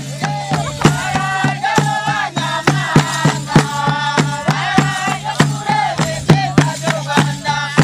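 Traditional Rwandan dance music: a group singing together over sharp, regular percussion beats, with rattles shaking.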